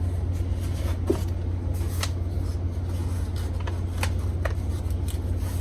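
Packaging being handled: rustling with scattered short crackles and clicks, over a steady low hum.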